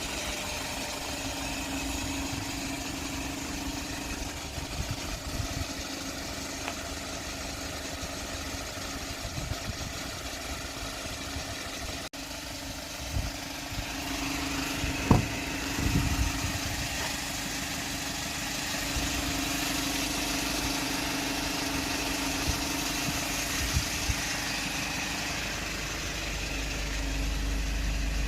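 Hyundai Porter truck engine running steadily, with a constant low hum, a brief break about halfway through and a few thumps soon after.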